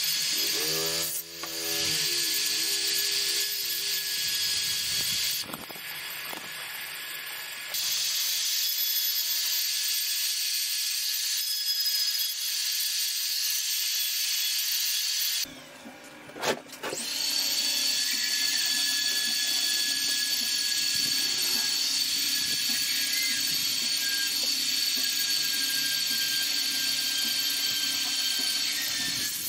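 Handheld electric rotary tool with a small carving bit, grinding into wood. It makes a steady high whine that drops out briefly twice.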